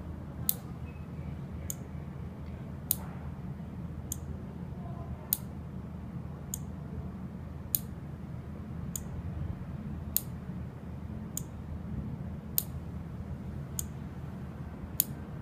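Alarm equipment ticking while the panel pairs with a new relay module: a short, sharp, high click about every 1.2 seconds, thirteen in all, evenly paced like a timer, over a steady low hum.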